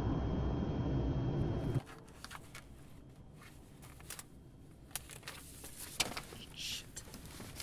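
Steady low rumble of an airliner's jet engines in flight, cutting off abruptly a little under two seconds in. Faint scattered clicks and rustles follow.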